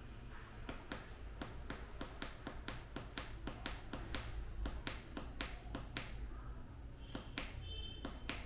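A rapid, uneven run of sharp clicks or taps, several a second, with two brief faint high tones, one near the start and one about five seconds in.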